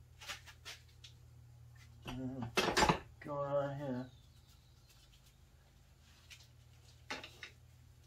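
Metal hand tools and steel hub parts clinking and clattering at a bench vise. There are a few light clicks, then a louder burst of clatter about two and a half seconds in, and a few more clicks near the end. A short murmur from the mechanic follows the loud burst.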